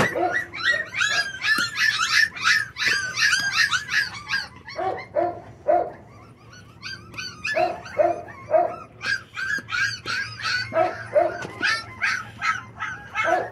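A litter of four-week-old American bully puppies whining and yipping in rapid, high-pitched cries that ease off for a couple of seconds midway, then pick up again: hungry puppies crying to be fed.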